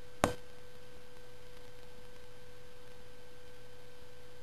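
A steady hum at one pitch, with a fainter higher tone above it, and one sharp click about a quarter of a second in.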